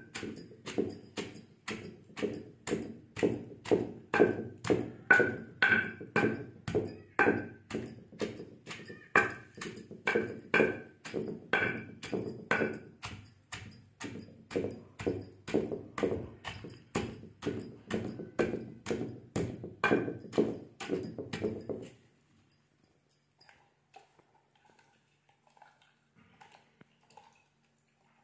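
Wooden pestle pounding green chillies in a heavy stone mortar, a steady rhythm of about two strokes a second. The pounding stops suddenly a few seconds before the end.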